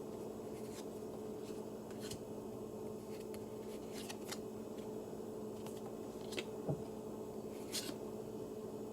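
Trading cards being handled and flipped through one by one: faint, scattered flicks and slides of card stock, about one every second, over a steady low hum.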